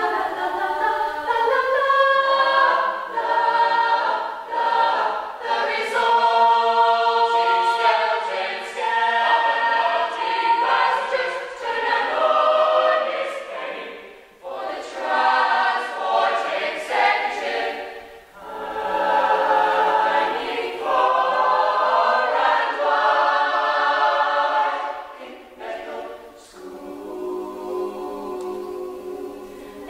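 Mixed-voice youth choir of girls and boys singing in parts, with short breaks between phrases.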